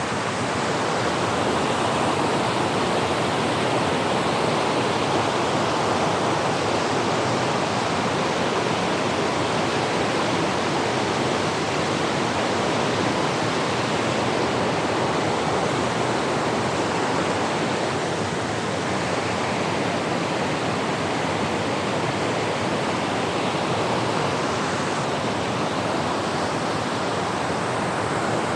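Steady rush of falling water from a waterfall and its stream, an even, unbroken noise.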